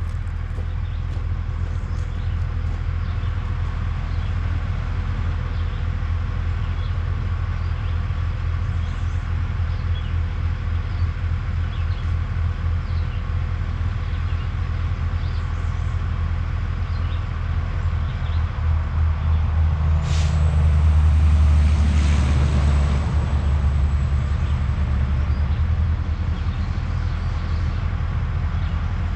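Heavy diesel truck engine running steadily out of sight, growing louder about two-thirds of the way through as it works closer. A sharp hiss of air cuts in about twenty seconds in.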